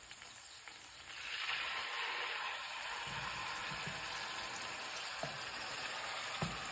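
Chicken breast cutlets sizzling in a frying pan with a little hot oil. The sizzle rises about a second in, as another cutlet goes into the pan, and then holds steady.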